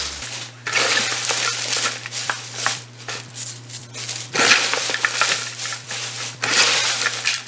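Bare hands tossing shredded cabbage and mustard greens with sea salt in a large plastic basin: crisp rustling and crunching of the leaves in repeated swells. The greens are being mixed through with salt to wilt them lightly.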